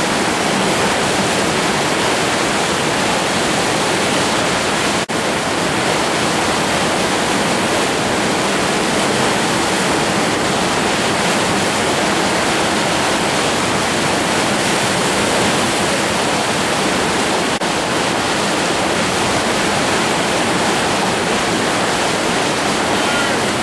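Whitewater river rapids rushing: a loud, steady noise of fast-flowing water, with a split-second break about five seconds in.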